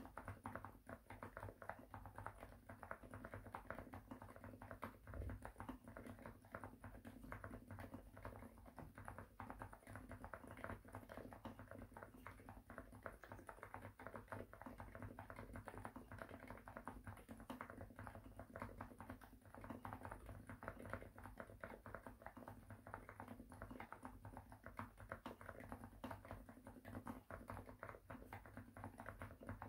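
Continuous quiet typing on a Xinmeng M67 mechanical keyboard fitted with lubed TTC Silent Bluish White silent switches and PBT doubleshot keycaps, in a gasket-mounted aluminium case with a polycarbonate plate: a steady stream of soft, muted keystrokes.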